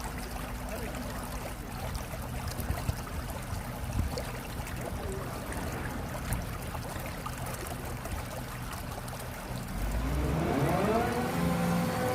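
Excavator diesel engine running steadily at low revs, with a low hum and scattered knocks and clatter. About ten seconds in, the engine revs up, its pitch rising and then holding at a higher, louder note.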